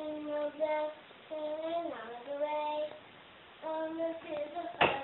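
A young girl singing a children's song alone, in short phrases of held notes with a few sliding pitches and pauses between them. A sharp knock sounds near the end.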